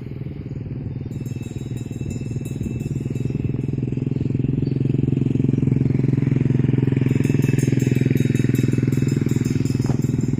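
A small engine running close by, growing louder over the first half and then holding steady.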